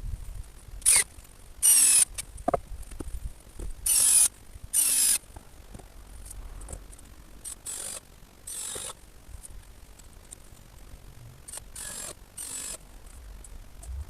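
Ratchet spanner tightening bolts on a timber frame in a series of short bursts of ratcheting, several of them in quick pairs, with pauses between.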